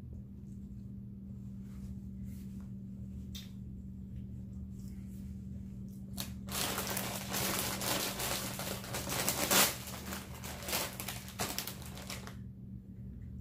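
A plastic chip bag crinkling as it is handled, in a dense crackling stretch of about six seconds that starts midway, over a steady low hum.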